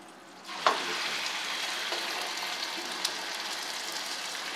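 Sliced marinated olives, mushrooms and gherkins sautéing in butter in a stainless steel frying pan: a steady sizzling hiss that comes in suddenly about half a second in, with a small click just after.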